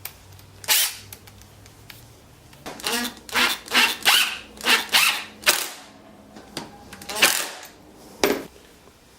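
Screws being driven into the small wooden pieces of the mount: about a dozen short, sharp bursts, bunched most closely between about three and five and a half seconds in.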